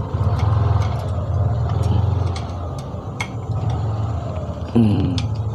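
A steady low engine-like rumble with a fine even pulse, changing pitch briefly near the end. Over it are scattered light clicks of small plastic and metal parts being handled and fitted into a copier's document-feeder frame.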